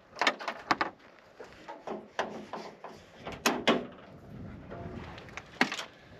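About half a dozen sharp clicks and clunks at uneven intervals: a Jeep's hood being unlatched and raised.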